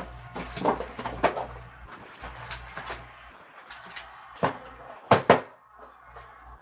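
Cardboard trading-card boxes being opened and handled: a lid slid off, an inner box and packs lifted out, with scattered knocks and scrapes of cardboard on the table, the loudest two close together about five seconds in.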